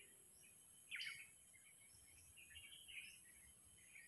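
Faint, scattered high chirps of small birds, with one sharper chirp about a second in.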